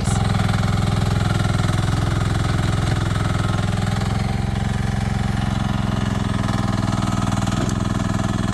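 The 10-horsepower engine of a 1-ton Chinese mini excavator running steadily at an even speed.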